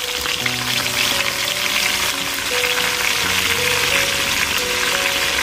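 Field climbing perch frying in hot oil in a pan: a steady sizzle full of fine crackles. Background music plays underneath.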